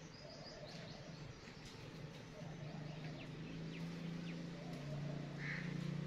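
Common myna giving short, faint chirps and clicks scattered through, over a steady low hum that grows louder toward the end.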